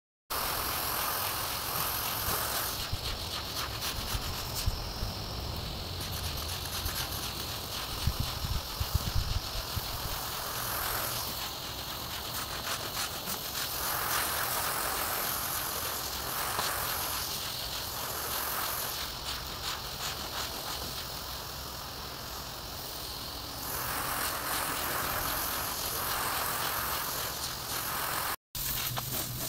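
Water spraying from a garden hose onto a soaked, soapy rug while a long-handled brush scrubs it: a steady hissing wash that swells and eases every few seconds.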